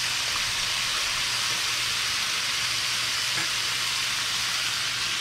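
Chunks of venison backstrap searing in hot oil in a cast-iron skillet, a steady sizzle.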